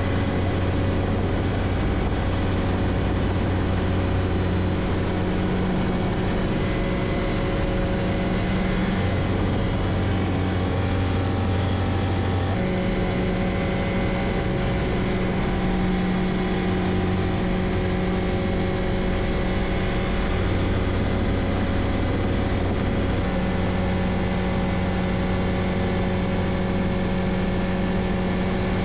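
Ranabot light helicopter's engine and rotor heard from inside the cockpit in flight: a steady, unbroken drone with a strong low hum, its tone shifting slightly a couple of times.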